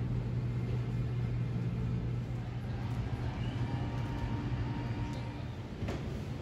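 Room tone: a steady low hum with faint, indistinct background noise, easing slightly near the end.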